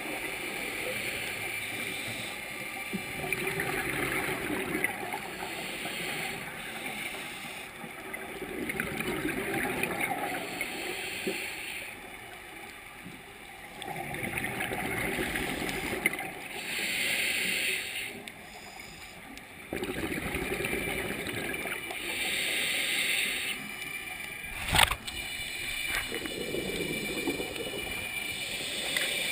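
Scuba diver breathing through a regulator underwater. A hissing inhale alternates with a bubbling exhale every few seconds, and there is one sharp knock near the end.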